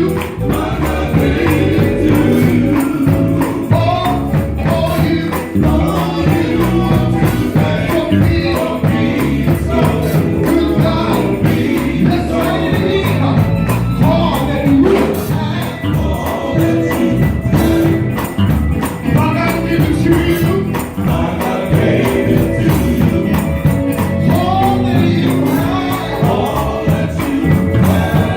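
Gospel quartet band performing live: voices singing over electric guitar, bass and keyboards, with a steady driving beat.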